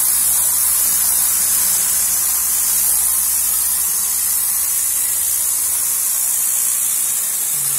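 Tornador air-pulse cleaning gun blasting high-pressure compressed air and cleaning solution into a car's fabric headliner: a steady, loud hiss, with a low hum underneath.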